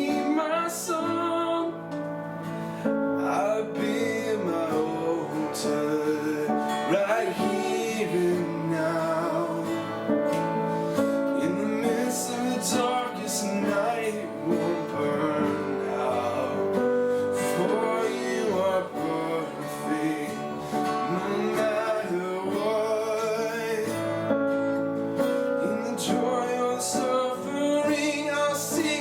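A worship song played on acoustic guitar, with voices singing over the strummed chords.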